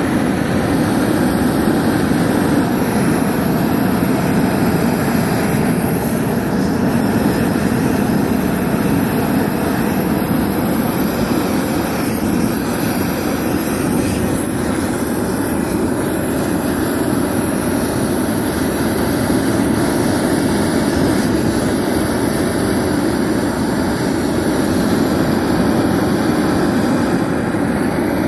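Handheld propane weed-burner torch burning steadily, a continuous even rushing noise with no break.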